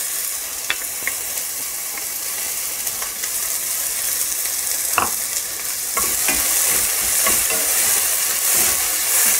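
Chopped red onion sizzling in hot oil in a stainless steel pan, with a few light knocks and the scrape of a spatula stirring it in the second half.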